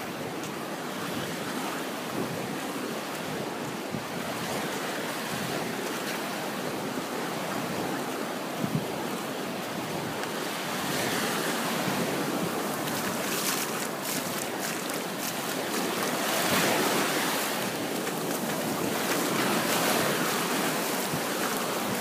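Small waves washing up on a sandy beach, the surf hiss swelling and easing in slow surges, with a breeze blowing on the microphone.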